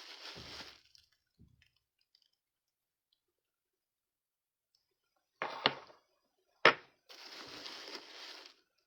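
Packing material rustling as small ceramic clown figurines are unwrapped and handled: a short rustle, a silent gap, two sharp clicks about a second apart, then more rustling.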